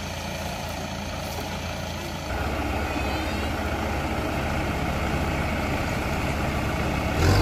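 Kubota DC70 combine harvester's diesel engine running steadily, then revving up about two seconds in and holding at the higher speed. A brief thump comes near the end.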